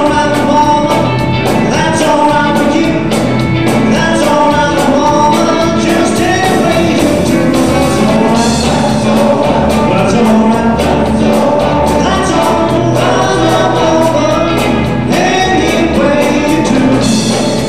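Band music with several voices singing over a steady drum beat.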